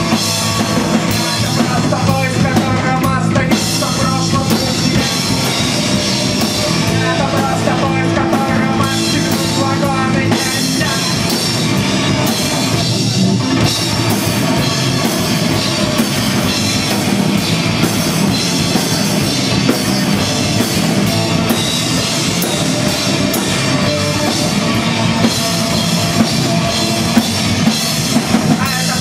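Rock band playing live and loud: distorted electric guitars over a driving drum kit, without a break.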